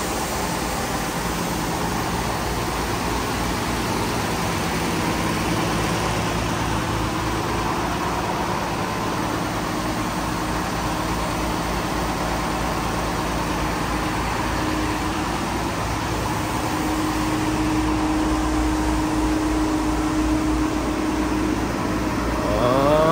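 Transit bus engine idling close by, a steady low hum.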